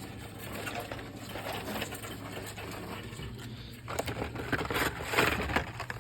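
Hot Wheels blister-carded packages being handled and shuffled: crackling plastic blisters and cardboard rustling with small clicks, busier and louder from about four seconds in.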